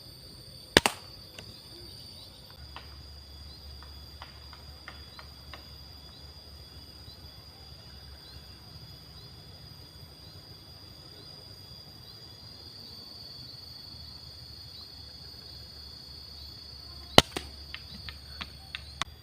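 Two sharp shots from an air rifle, about a second in and near the end, the second followed by a few lighter clicks. Under them runs a steady high chirring of insects.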